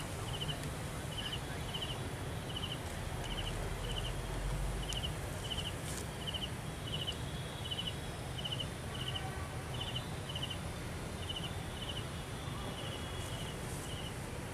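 An insect chirping steadily, short high chirps in pairs about once a second, over a low steady background rumble.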